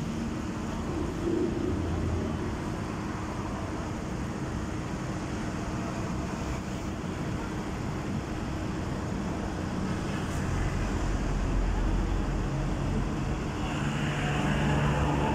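Sany SY215C crawler excavator's diesel engine running under hydraulic load while the machine drives down off a lowbed trailer. The engine noise swells twice, about two-thirds of the way in and again near the end.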